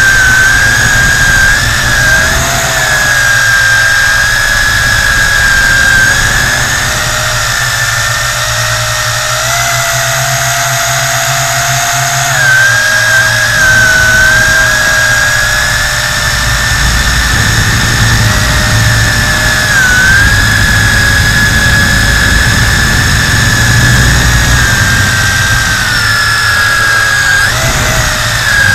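Tarantula X6 hexacopter's motors and propellers whining steadily, heard close up from the camera riding on the drone. The pitch wavers slightly every few seconds as the throttle changes, over a low rumbling noise.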